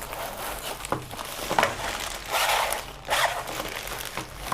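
Packaging being handled and unwrapped around a drone battery charger: crinkling, rustling noise with a few sharp clicks.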